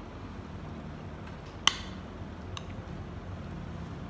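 A metal utensil clinks sharply once against a glass bowl, with a lighter tap about a second later, over a steady low background hum.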